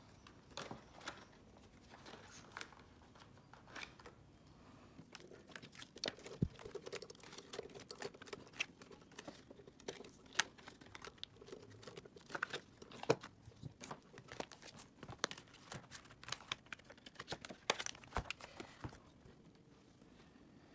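Paper prop banknotes and envelopes being handled: faint rustling with many small sharp ticks, busier from about six seconds in and dying down shortly before the end.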